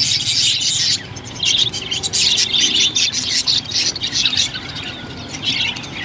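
A flock of caged budgerigars chattering: many rapid, overlapping chirps and squawks, with short lulls about a second in and again near the end.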